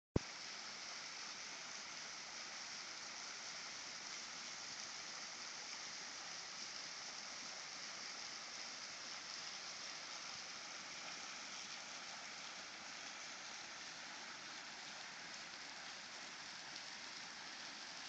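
Thin, partly frozen waterfall dripping and spilling off a rock ledge and splashing onto rocks below: a steady, even patter, with a single click at the very start.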